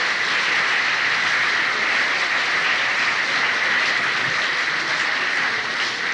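Concert hall audience applauding steadily, a dense even clatter of many hands, heard on an old cassette tape recording.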